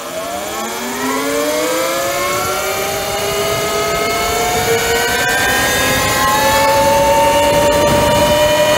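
72-volt E-Ride Pro SS 2.0 electric dirt bike accelerating hard on a top-speed run: the electric motor's whine climbs steadily in pitch as speed builds. Under it, a rush of wind and road noise grows louder.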